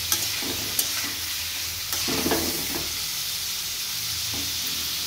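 Prawns sizzling in hot oil in a kadhai while a flat metal spatula stirs and scrapes them, with two sharp clicks of the spatula on the pan in the first second.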